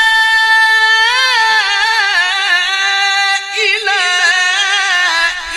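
Man reciting the Quran in melodic tajwid style, holding one long high note without a break for breath. The note carries wavering ornaments about a second in and again past the middle, and sinks slightly in pitch near the end.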